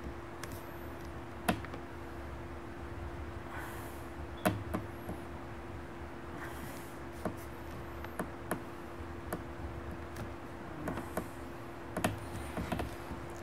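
Pen working on sketch-pad paper: faint strokes with scattered sharp clicks and taps, several of them close together near the end, over a steady low hum.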